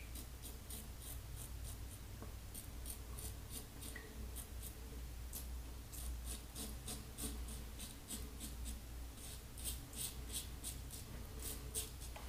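Fine Marvel double-edge safety razor with a Personna 74 blade cutting one day's stubble on the upper lip through lather: a long run of short, faint scratchy strokes, a few a second.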